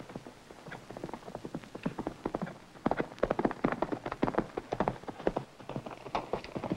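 A single horse galloping, its hoofbeats a fast, uneven clatter that grows louder as it comes closer, strongest from about three seconds in.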